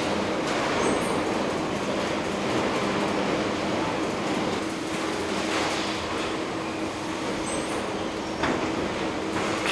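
Car body-shop ambience from a line of industrial welding robots: a dense mechanical clatter and hiss over a steady hum, with scattered clicks and two brief high beeps, one about a second in and one near the end.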